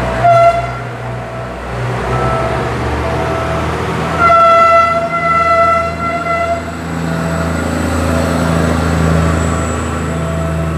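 A Philippine National Railways diesel multiple unit departing, its horn giving a short toot at the start and then a longer blast of about two and a half seconds about four seconds in, over the steady hum of the diesel engines.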